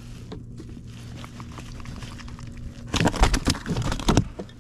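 Handling of a sea perch being bled with a knife on a plastic cutting board: faint scrapes and ticks, then a quick cluster of loud knocks and rattles about three seconds in, over a steady low hum.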